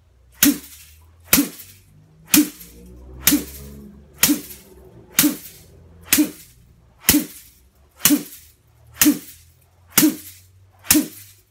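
Bamboo chi brush striking the body in qigong self-tapping, a sharp slap about once a second in a steady rhythm, a dozen strikes in all.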